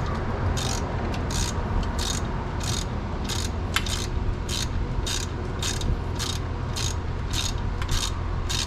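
Hand ratchet wrench clicking in short, even back-strokes, about one and a half a second, as a long bolt is backed out. A steady low hum runs underneath.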